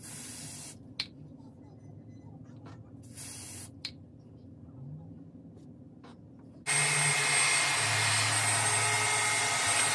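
Two short hisses of aerosol spray onto a wig cap, each followed by a small click. About two-thirds of the way in, a handheld hair dryer switches on and runs steadily, much louder, with a faint high whine, drying the sprayed cap.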